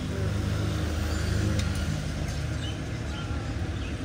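A motor vehicle engine running steadily at low revs, swelling a little and easing back, with a few faint short high chirps over it.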